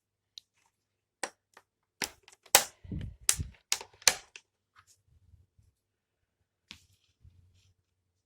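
Handling noise: a quick run of sharp clicks and knocks from hard objects being handled, with a few dull thuds, bunched between about two and four seconds in, then one more click near the end.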